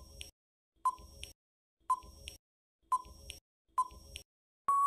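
Quiz countdown-timer sound effect: five short beeps about a second apart, each followed by a soft click. Near the end a long steady beep starts as the count runs out.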